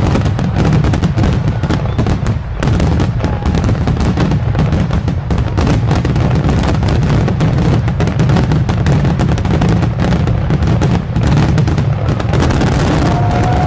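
Aerial fireworks shells bursting in a dense, unbroken barrage, many reports a second over a continuous low rumble, as in a finale. A short whistle sounds near the end.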